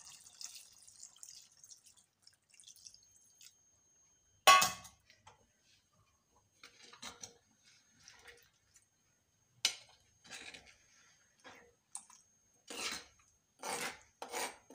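Coconut milk poured faintly into a clay pot of fish curry, then one sharp clank about four and a half seconds in, followed by a steel spoon clinking and scraping against the clay pot as the curry is stirred, with several quick clinks near the end.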